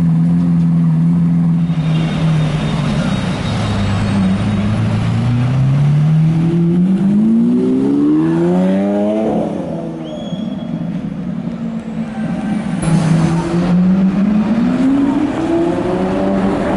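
Lamborghini Aventador's V12 engine idling, then revving and pulling away, its note climbing steeply twice.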